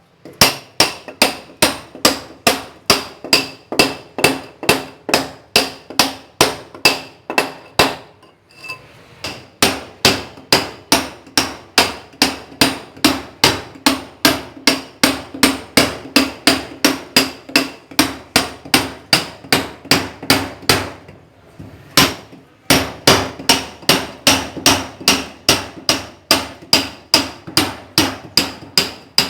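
A hammer striking a steel chisel (ponteiro) in a steady rhythm of about three blows a second. Each blow rings with the same metallic tones. The hammering pauses briefly twice.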